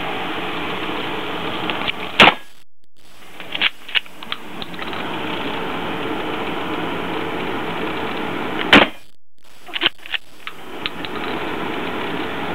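Two loud gunshots about six and a half seconds apart, each followed by a brief cut-out of the sound as the recording overloads, then a few lighter clicks. A steady hum of range ventilation and background noise runs between the shots.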